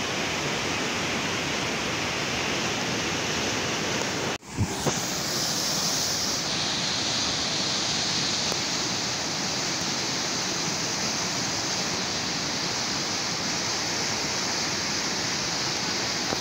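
Steady rushing of a muddy river in flood, pouring through the openings under a low causeway bridge. About four and a half seconds in, the sound drops out briefly with two sharp clicks, and after that the rush has more hiss.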